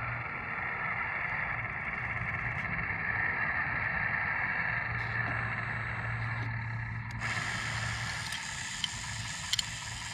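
Electric hydraulic pump of a radio-controlled model construction machine running with a steady whine and low hum while its bucket arm moves, with two short clicks near the end.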